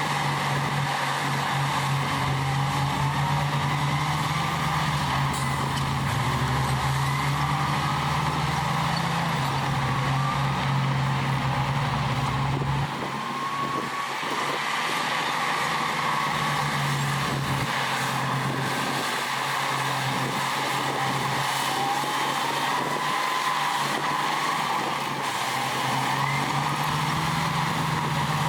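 Heavy diesel construction machinery running steadily under load, with repeated rising whines over the engine note. The deepest part of the rumble drops away about halfway through.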